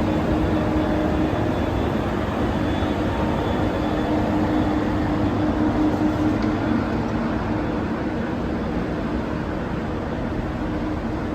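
Train at a railway station: a steady rumble with a low, even hum that weakens after about seven seconds.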